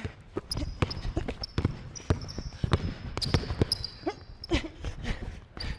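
A basketball being dribbled hard on a wooden gym floor, thudding in an uneven rhythm, with sneakers squeaking in short high chirps on the floor between the bounces.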